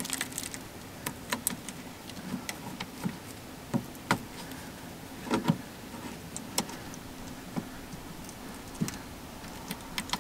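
Irregular small clicks and taps of fingers working a rubber grommet into its hole in a generator's sheet-metal housing, over a faint steady hum.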